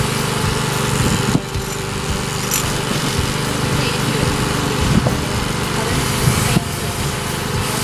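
Electric sheep-shearing handpiece running steadily as it cuts through a ram's fleece, a constant motor buzz that dips briefly twice.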